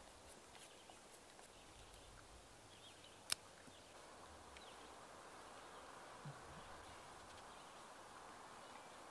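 A knife whittling a small wooden stick, very faint: quiet scraping and ticks, with one sharp click about three seconds in.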